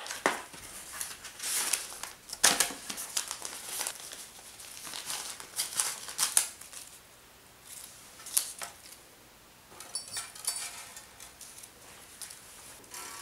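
Crinkling and tearing of a Cleartone guitar-string pack being opened by hand: irregular sharp crackles as the sealed string packet is torn open and the coiled string pulled out. A quick run of light ticks comes about ten seconds in.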